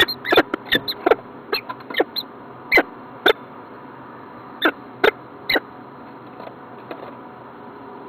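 Peregrine falcon giving short, squeaky chupping calls in quick runs. They come thickly over the first three seconds, then three more come around five seconds in, and a couple of faint ones follow.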